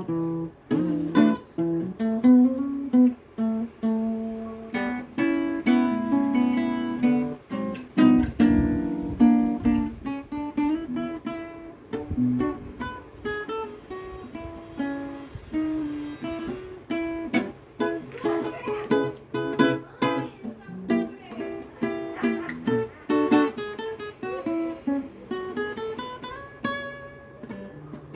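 Acoustic guitar played solo in an improvised passage, single plucked notes mixed with strummed chords.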